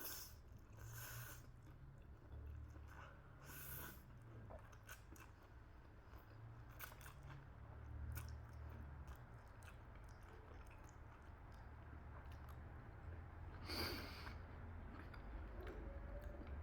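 Close-up chewing of chilli chicken momo: soft wet mouth clicks and smacks, a few louder ones scattered through, over a faint low hum.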